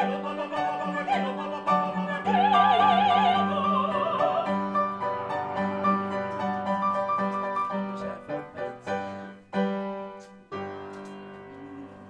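Operatic singing with a wide vibrato over piano accompaniment, including a long held, wavering note about two seconds in. The music drops away to a quieter stretch near the end.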